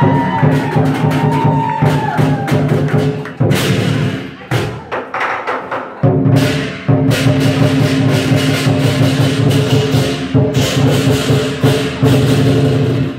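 Lion dance percussion of drum, cymbals and gong playing a fast, loud beat. It thins out about four seconds in and comes back at full strength about two seconds later.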